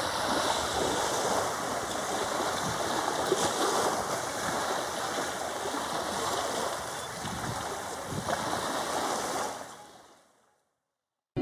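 Beach ambience: wind on the microphone and small waves washing on a sandy shore, a steady rushing noise that fades out about ten seconds in.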